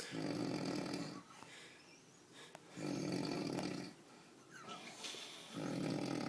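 Snoring: three long snores, one about every three seconds, with quieter breathing between.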